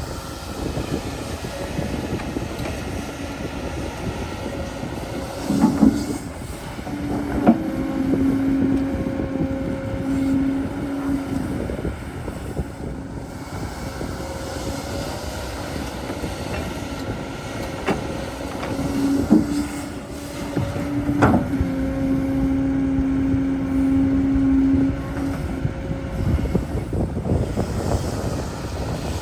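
Excavator at work: steady machine noise, with a hum that rises twice and holds for several seconds, and a few sharp knocks.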